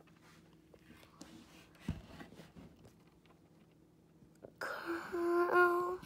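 Quiet handling with a soft knock about two seconds in, then near the end a short breathy noise and a person humming one steady note for about a second.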